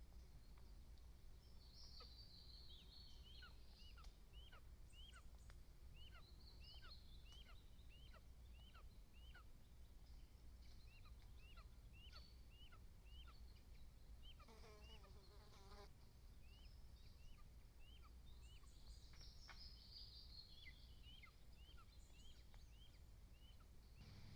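Faint bird calls: one bird gives a long series of short high chirps at about two a second, with other birds singing over it and one brief lower call about two-thirds through, above a steady low rumble.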